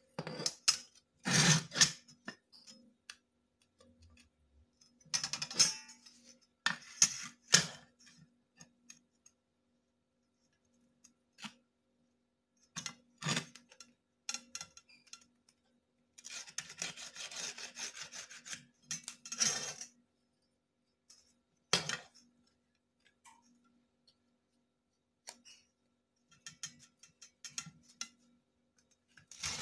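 Ceramic tile being scraped and handled by hand without a grinder: scattered short scrapes and clinks of hard ceramic, with one longer run of scraping just past the middle.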